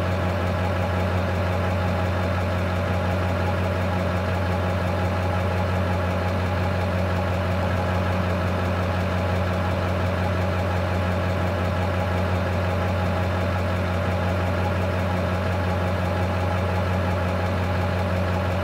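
Truck's diesel engine idling steadily, a constant low hum with no change in speed.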